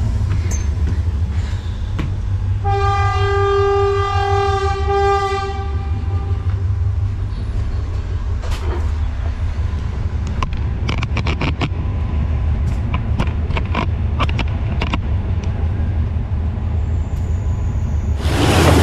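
Train running with a steady low rumble; about three seconds in a train horn sounds one long blast lasting about three seconds. Later comes a run of sharp clacks, and near the end a loud rush of noise sets in.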